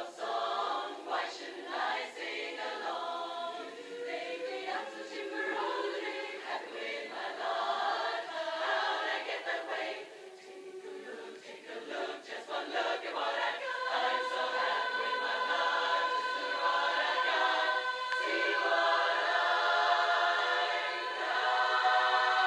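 Women's barbershop chorus singing a cappella in close harmony. The phrases are short and broken at first, then settle into long held chords over the second half, growing louder.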